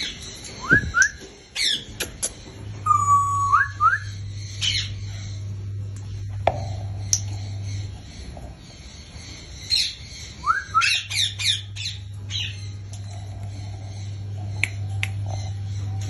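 African grey parrots giving short rising whistles and squawks in scattered bursts: a held whistle that bends upward about three seconds in, and a quick run of calls a little past the middle. A steady low hum comes and goes underneath.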